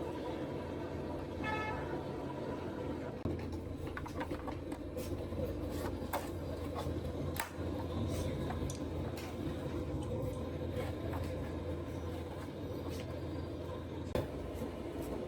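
Steady low rumble of nearby vehicle traffic, with scattered light clicks and taps through the middle.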